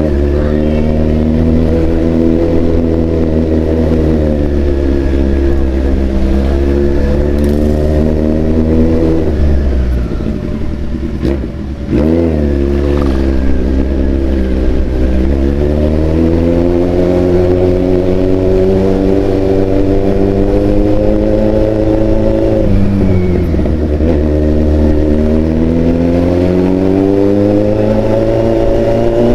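Large-displacement motorcycle engine running under way, its pitch climbing slowly as the bike accelerates in gear. It eases off around ten seconds in, climbs again, drops suddenly a little after twenty seconds and rises once more.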